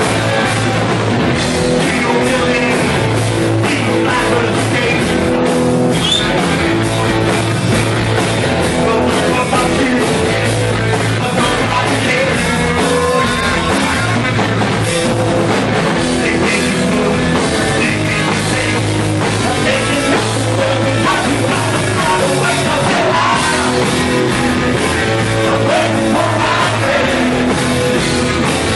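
Live punk rock band playing loudly: electric guitar, bass and drum kit in a steady, dense wall of sound, with the bass line stepping between notes.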